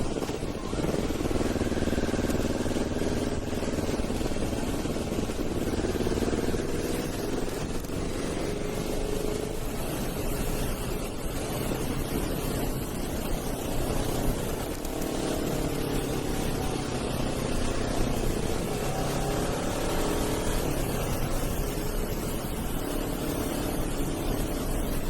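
Motorcycle engine running on the road, its pitch rising and falling with the throttle, over a steady rush of wind noise.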